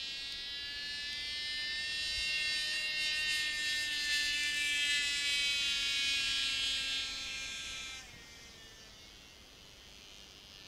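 Cox TD .049 glow engine on a small radio-controlled model plane buzzing overhead with a high-pitched whine, its pitch sagging slowly. About eight seconds in it suddenly falls to a much fainter buzz.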